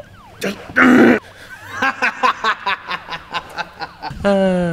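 A man laughs in a run of short, breathy pulses, after one loud burst about a second in, and ends on a falling groan. A siren wails faintly behind.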